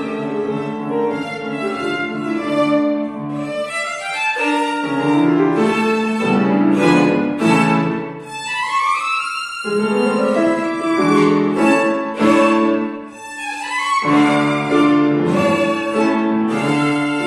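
A violin playing a melody over grand piano accompaniment. The violin sweeps quickly upward about halfway through while the piano keeps up chords beneath it.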